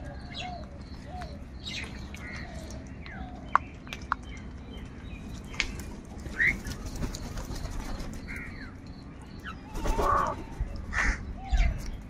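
A flock of house crows calling and cawing while feeding, mixed with short chirps and scattered sharp clicks. A louder, harsh caw comes about ten seconds in.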